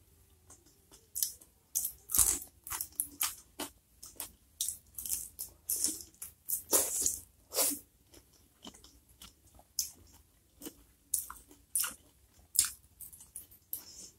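Close-miked chewing of stir-fried pineapple chunks cooked with garlic: a run of irregular short mouth sounds.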